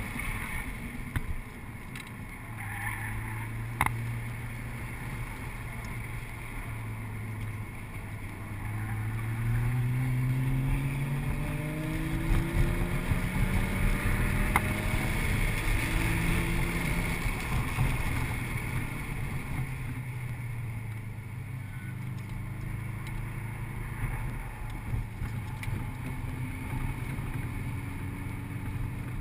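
Audi RS4's 4.2-litre V8 heard from inside the cabin while lapping a track. It runs steadily, then climbs in pitch and gets louder for several seconds about a third of the way in before dropping back. A few sharp clicks sound over it.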